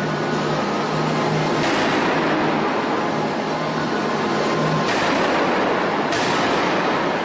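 Heavy forging machinery running in a forge shop: a loud, steady mechanical noise with a low hum through the first few seconds and abrupt changes in the noise now and then.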